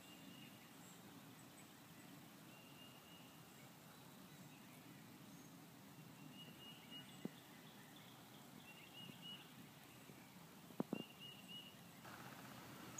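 Near silence: quiet woodland ambience with faint, short high-pitched calls now and then and a few soft clicks in the second half.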